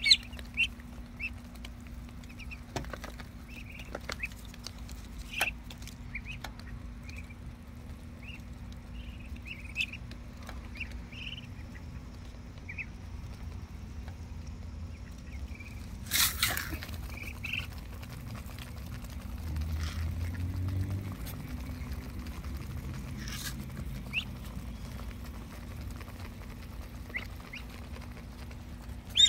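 Muscovy ducklings peeping in short, scattered chirps while they and the adult Muscovy ducks peck feed off concrete, bills tapping the ground in sharp clicks now and then. One louder sudden rush of noise about sixteen seconds in and a low rumble a few seconds later, over a steady low hum.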